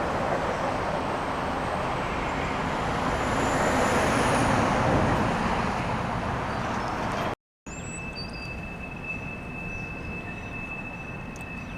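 A vehicle passes by, its noise swelling to a peak about four seconds in and then fading. Faint high whistling rides on top. After a sudden break there is quieter street background with a steady high-pitched tone.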